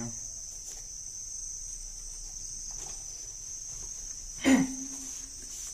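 Steady high-pitched chirring of insects in the background, with one short, sudden, louder sound about four and a half seconds in.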